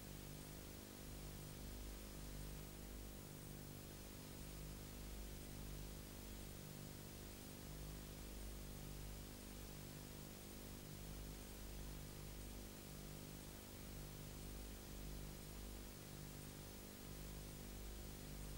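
Low electrical hum and steady hiss with no soundtrack, a low part of the hum pulsing about every second and a half.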